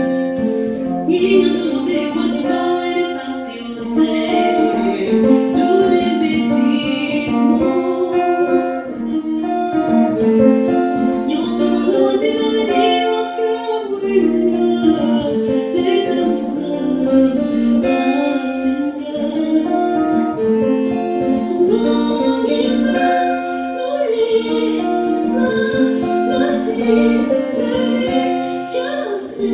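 Acoustic-electric guitar played continuously, a plucked melody over chords.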